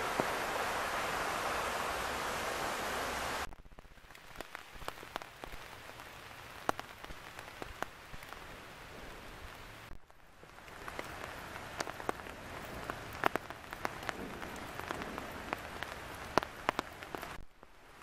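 Rain falling in woodland: a soft hiss with many scattered raindrops ticking on leaves and ground. The first few seconds are a louder, even rushing hiss that cuts off abruptly.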